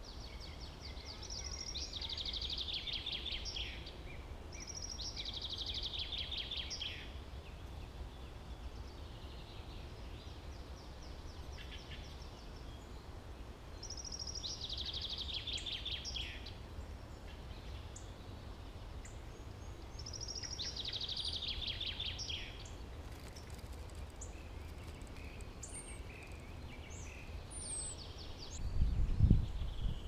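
Common chaffinch song played from a phone as a lure recording: five phrases of falling trills, each ending in a flourish, several seconds apart. A few low thumps near the end.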